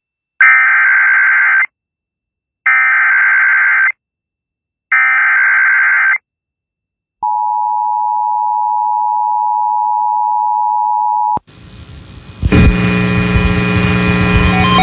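Emergency Alert System tones: three bursts of the SAME digital header's warbling data tones, each just over a second long, followed by the steady two-tone attention signal for about four seconds, marking the start of a new alert. Loud music starts near the end.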